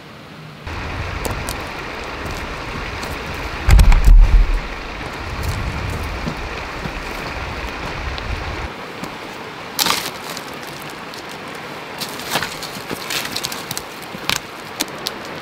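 Wind buffeting the microphone with a loud low rumble around four seconds in. After it drops away, sharp crackles and clicks come from someone moving over loose stones and dry pine branches.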